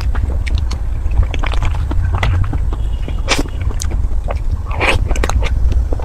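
Close-miked eating of a soft dessert: many short wet chewing and mouth clicks, a few louder squelches about three and a half and five seconds in, over a steady low rumble.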